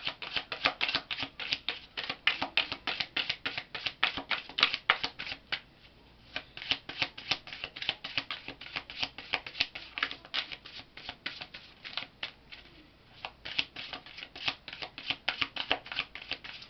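A tarot deck being shuffled by hand: a rapid, dense patter of cards flicking against each other, broken by two short pauses, about six seconds in and around twelve seconds in.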